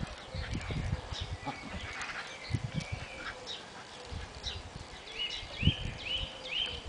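Two dogs, an Australian Cattle Dog and a Border Terrier, play-fighting on grass: irregular low scuffling thumps as they tussle. Small birds call in the background, and from about five seconds in one bird repeats a short rising chirp two or three times a second.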